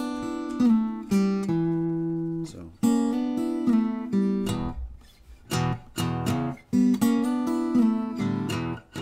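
Acoustic guitar played as a blues in E: plucked single notes and two-string licks ringing over the bass, with a short pause about five seconds in, then quicker repeated plucks.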